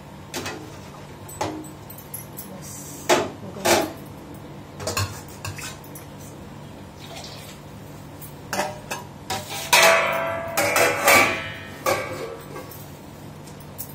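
Stainless-steel cookware and utensils clanking: a steel spatula, kadai and pots knocked and set down in a scatter of separate clinks, with a busier run of ringing clatter about ten seconds in. A steady low hum runs underneath.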